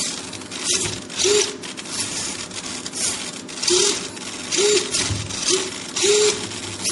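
Turnigy TGY-930 digital metal-gear servos of a pan-and-tilt camera mount whirring in short bursts, about once a second, as they swing the camera about, each burst with a brief whine that rises and falls.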